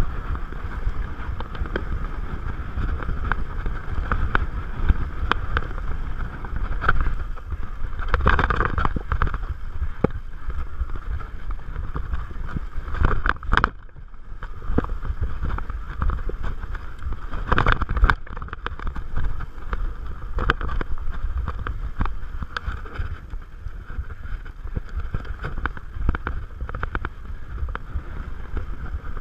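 Salsa Bucksaw fatbike descending rough dirt singletrack: wind buffeting the handlebar camera's microphone over a steady rumble of fat tyres on the trail, with frequent small rattles and knocks from the bike. Two sharper knocks stand out in the middle, a few seconds apart.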